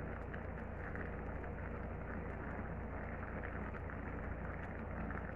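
Coconut-milk sauce simmering in a stainless steel pot over a gas flame: a steady bubbling hiss with faint crackles, while a ladle stirs and spoons the sauce over the greens.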